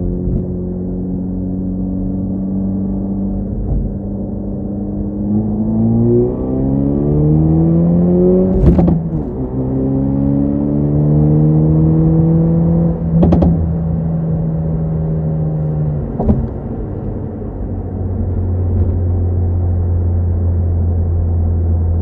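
Hyundai Veloster N's turbocharged 2.0-litre four-cylinder heard from inside the cabin. It drones steadily, then revs up in two rising pulls, each ending in a sharp crack at the gear change, about nine and thirteen seconds in. A third crack comes near sixteen seconds, and after it the engine settles into a lower steady drone.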